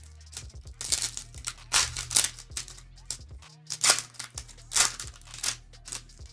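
A foil Japanese Pokémon TCG booster pack being torn open and handled: a run of crackling rips and crinkles, the loudest about 2, 4 and 5 seconds in. Quiet background music plays underneath.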